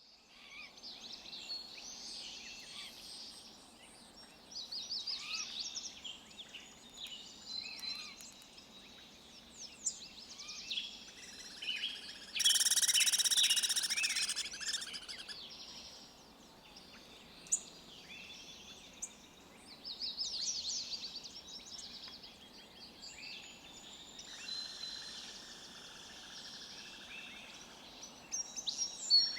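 Forest songbirds chirping and whistling in overlapping short phrases over a faint outdoor hiss. About halfway through, a louder rapid trill or chatter lasts about three seconds.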